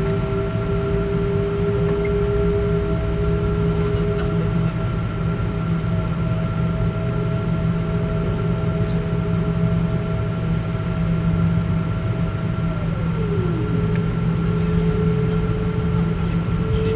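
Cabin noise inside a Boeing 777-200ER taxiing: a steady low drone from the engines at taxi power, with a few steady whining tones over it. About thirteen seconds in, one of the whines slides down in pitch and drops away.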